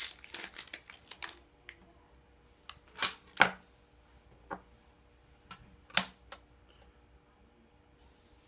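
Wrapper crinkling in the first second, then a few sharp knocks and taps as unwrapped candy bars are set down and handled on a wooden tabletop. The loudest knocks come about three seconds in and again at six seconds.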